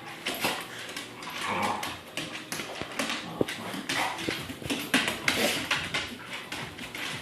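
A pit bull playing, making a quick, irregular run of short scuffling and breathy sounds, loudest about five seconds in.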